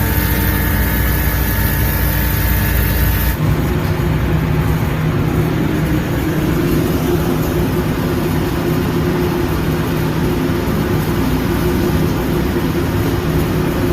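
Steady machine hum with several held tones over a noisy background. It changes abruptly about three and a half seconds in, then settles into a slightly different steady hum.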